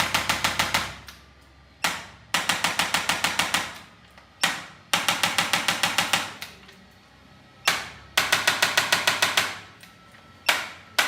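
Handheld chiropractic adjusting instrument firing against the lower back: repeated bursts, each a single sharp click followed by a rapid train of about ten clicks in a second, four or five times over.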